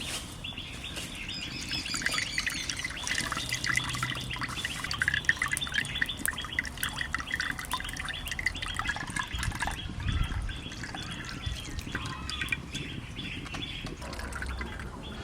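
Small birds chirping and twittering, many short calls throughout.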